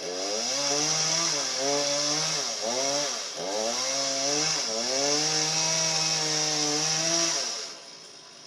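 Two-stroke chainsaw at full throttle cutting through a tree trunk. Its engine pitch dips and recovers several times as the chain bogs down in the cut, then the saw drops off near the end.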